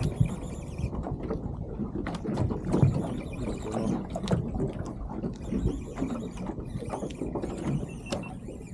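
Water slapping and knocking against a small aluminium boat's hull, with wind buffeting the microphone.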